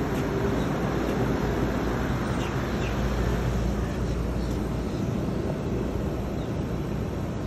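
Pool heat pump running, a steady hum and whoosh from its fan and compressor.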